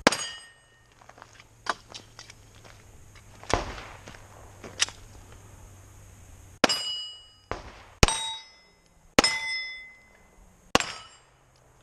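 Pistol shots fired one at a time at steel plates, each loud crack followed by the ringing clang of a struck steel target. Five loud hits, the first right at the start and four more spaced a second or so apart in the second half, with a few fainter cracks in between.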